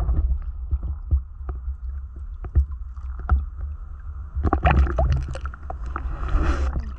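Lake water sloshing and lapping against a waterproof camera held at the surface, with a low rumbling buffet and scattered small knocks. There are louder splashes about halfway through and again near the end.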